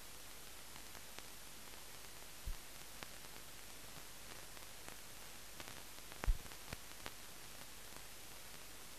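Steady hiss with a few scattered clicks and pops, the loudest a little after six seconds in. This is the background noise of a film transfer that has no soundtrack of its own.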